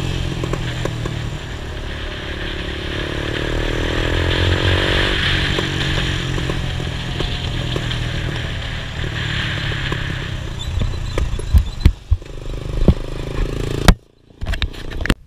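Quad (ATV) engine running at road speed with wind rushing over the camera's microphone, its pitch rising and falling about three to five seconds in. Near the end come sharp knocks and clatter as the tyres hit rough dirt, then the sound cuts off suddenly.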